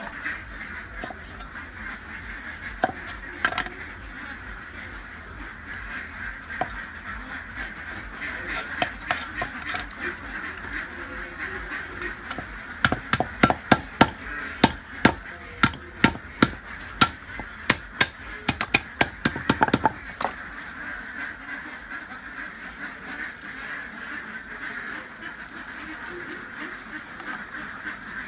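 Cleaver chopping lemongrass stalks on a wooden chopping board: a few separate cuts, then a quick run of sharp knocks, about two a second, lasting several seconds, over a steady background of calls.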